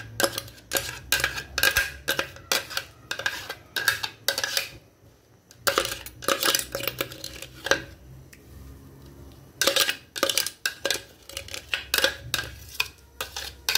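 A utensil knocking and scraping blended chili-and-shallot paste out of a blender jug into a stainless steel pan: a string of sharp clinks and knocks, about two a second, with two short lulls in the middle.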